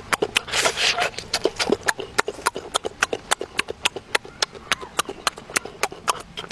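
Rapid, regular mouth clicks and smacks of exaggerated chewing, about six a second, with a short noisy crunch about half a second to a second in.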